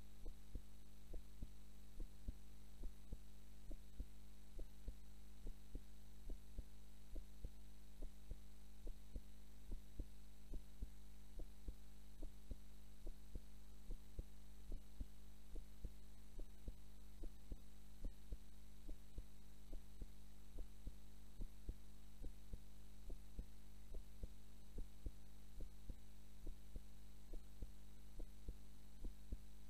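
A woman's heartbeat recorded close up while she is asleep, a slow, even lub-dub about once a second over a steady low hum.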